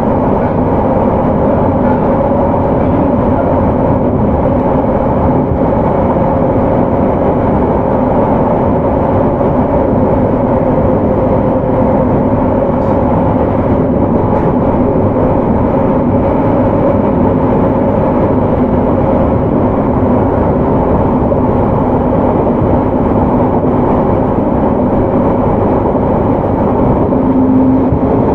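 JR Hokkaido 731 series electric train running at a steady speed, heard from inside the motor car, a car with Hitachi IGBT VVVF traction control. It makes a continuous rumble of wheels on rail with a steady low hum.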